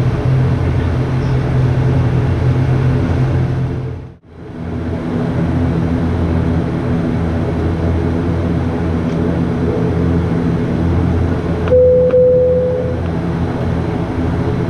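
ATR 72 turboprop engines and propellers droning steadily, heard from inside the cabin while the aircraft taxis. The sound briefly drops out about four seconds in. About twelve seconds in, a short steady tone sounds for about a second.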